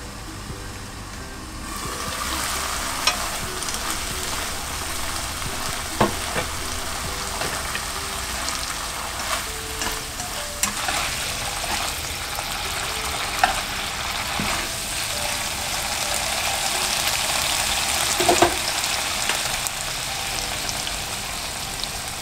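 Bracken fern stems (gosari) with garlic sizzling in a nonstick frying pan while they are stirred, with a few sharp knocks of the utensil against the pan. The sizzle sets in about two seconds in.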